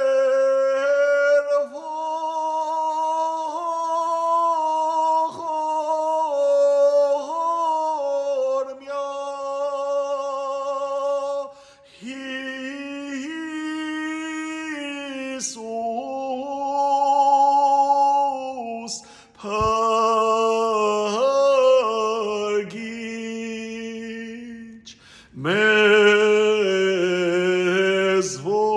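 Unaccompanied singing of a slow Armenian church chant: long held notes in phrases, with short breaks between them.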